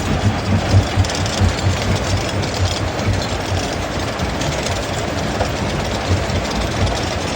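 Heavy diesel machinery running, with an uneven low thumping about two to three times a second over a steady rumble and rattle. The thumping is strongest in the first couple of seconds.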